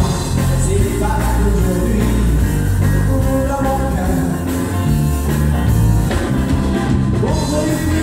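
Live rock and roll band playing: a man sings into a handheld microphone over electric bass and electric guitar.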